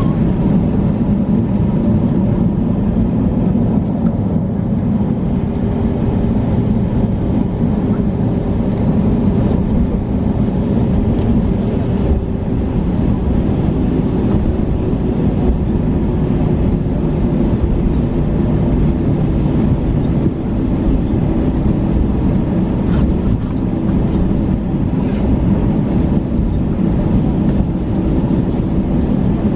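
Steady cabin noise inside an Airbus A321 on the ground, its jet engines running at low power: a continuous low rumble with a faint steady hum and no distinct events.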